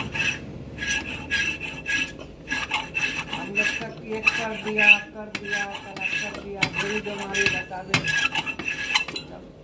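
Valve being lapped into the seat of a diesel engine cylinder head: a gritty metal-on-metal rasp in quick back-and-forth strokes, about two to three a second, with a faint ringing note in each stroke.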